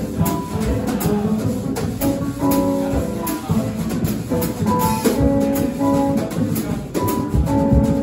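A jazz quartet of saxophone, piano, upright bass and drum kit playing live, with cymbal strokes running through it.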